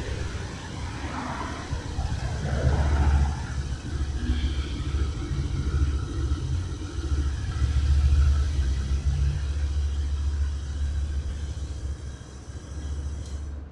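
Honda PCX 150 scooter's single-cylinder four-stroke engine running with its top end freshly rebuilt after a piston seizure, rising and falling in level. It runs quietly, with the earlier abnormal engine noise gone.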